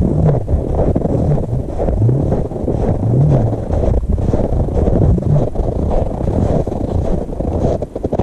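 Wind buffeting a head-mounted camera's microphone while the wearer walks quickly through snow, with footsteps crunching. A low tone rises and falls every second or two underneath.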